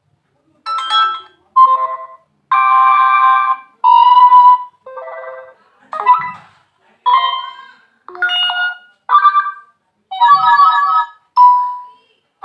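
A run of about a dozen different short notification tones from a Nokia 5.4 phone, chimes and jingles of roughly a second each, one after another, as the phone's notification sounds are previewed in turn.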